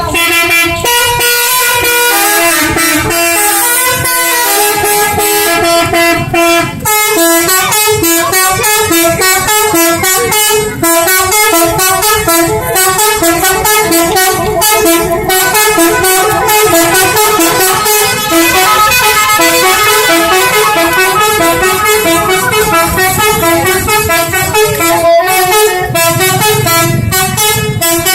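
Multi-tone musical bus horn, an Indonesian 'telolet' horn, playing a long loud melody. For the first several seconds it holds longer notes, then it moves into quick alternating notes.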